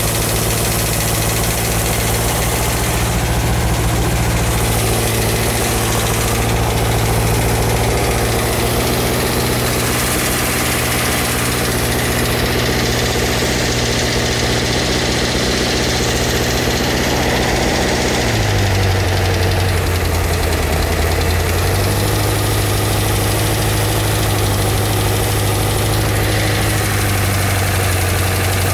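Jet boat's 458 Chevy V8 running at low speed through open chrome headers, with a broken roller rocker. The engine speed dips briefly about two-thirds of the way through, then picks back up.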